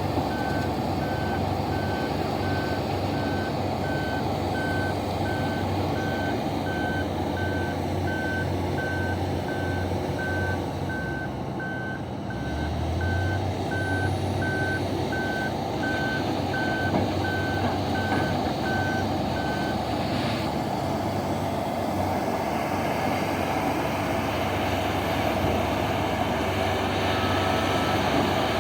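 Reversing alarm on heavy mining machinery beeping at one steady pitch, about two beeps a second, over the steady running of large diesel engines; the beeping stops about twenty seconds in. A low engine note rises about twelve seconds in.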